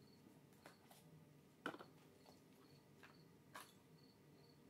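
Near silence with a few faint clicks from cards and packaging being handled. Behind them a cricket chirps faintly and steadily, about two short high chirps a second.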